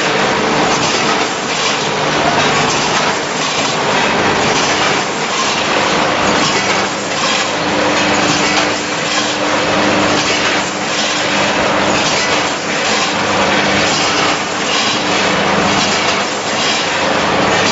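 Fully automatic rotary bag packing machine running, a continuous mechanical clatter with frequent clicks over a steady hum.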